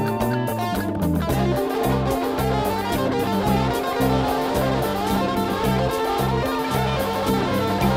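Instrumental music on distorted electric guitar, the sound growing fuller about a second in.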